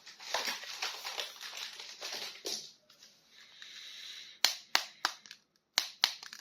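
Plastic toy packaging being crinkled and crackled for about two and a half seconds, then a series of sharp, irregular plastic clicks as the package and figure are handled.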